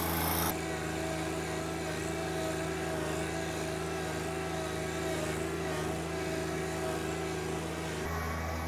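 John Deere 1025R compact tractor's three-cylinder diesel running at a steady speed while pulling a disc harrow through garden soil. The hum shifts slightly near the end.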